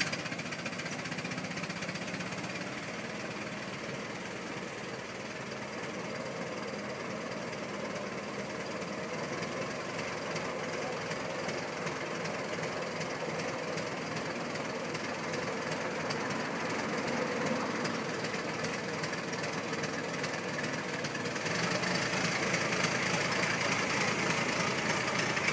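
1920 Ford Model T's four-cylinder flathead engine running steadily, just after starting. About twenty seconds in it gets louder as the car moves off.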